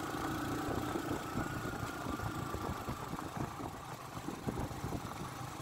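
Motorcycle engine running steadily with road noise, heard from the rider's own seat.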